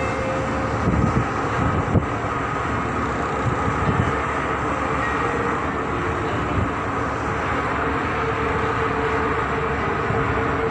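Steady machinery running noise, a dense rumble with a constant hum, with a few sharp knocks about one to two seconds in.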